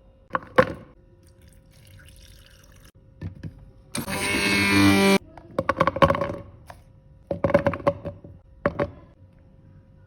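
Kitchen sounds: water pouring or running into a container for about a second, about four seconds in, stopping abruptly, among several knocks and clatters of utensils.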